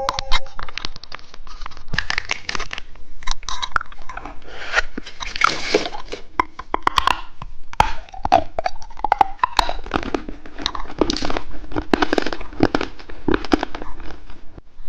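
Close-miked crunching and chewing of candy: irregular sharp crunches and wet crackles from biting and chewing.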